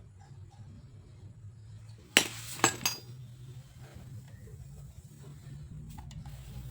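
Small metal pieces clinking together: a quick run of three sharp, ringing clinks about two seconds in, over a steady low hum.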